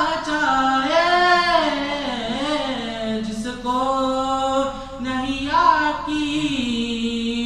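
A male voice singing an unaccompanied Urdu manqabat, drawing out long held notes with melismatic ornaments between the words of the verse.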